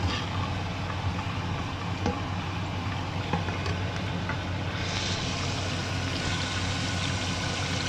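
Sliced sausage sizzling in a frying pan as a plastic spatula stirs it, with a few light clicks, over a steady low hum. About five seconds in, a louder, hissier sizzle of potato slices frying in hot oil.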